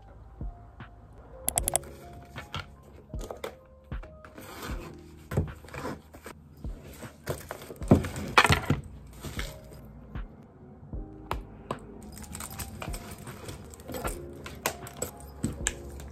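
Soft background music under the handling sounds of packing: objects picked up and set down on a desk and slipped into a bag, a string of light clicks, taps and rustles, loudest about halfway through.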